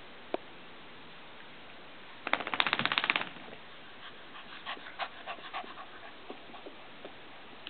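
Two puppies scuffling in play on a wooden floor, their paws and claws scrabbling. A single click comes near the start, then a dense, rapid run of clicks for about a second, the loudest part, and after it scattered softer ticks.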